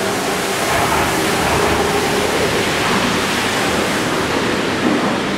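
Yui Rail 1000-series monorail train pulling out of the station and away along its beam: a steady rush of rubber-tyre and running noise, with a faint motor whine from its VVVF inverter during the first two seconds.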